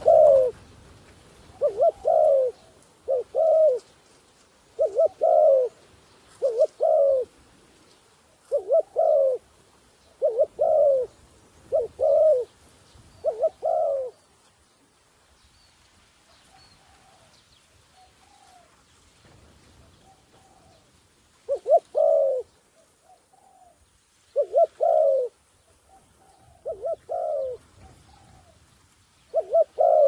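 Spotted dove cooing: repeated low two- and three-note coo phrases, about one a second. They stop about 14 seconds in and start again about seven seconds later.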